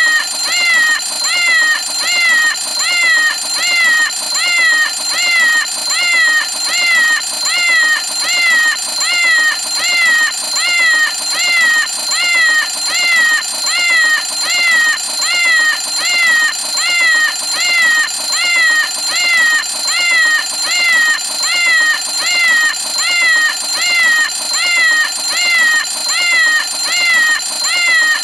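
Cartoon cat alarm clock going off: a meow that rises and falls in pitch, repeating evenly about three times every two seconds, over a steady high-pitched tone.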